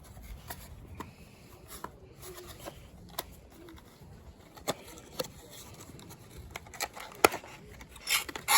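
Scattered light clicks and knocks from objects being handled, with a short rustling burst about eight seconds in.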